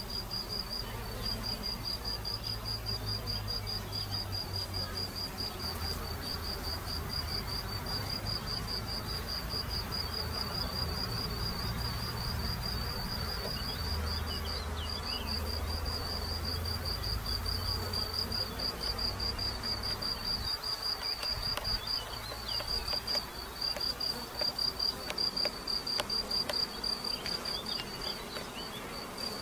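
Honeybees buzzing as they fly in and out of a wooden Warré hive's entrance, over a rapid, steady high-pitched chirping that breaks off briefly a few times.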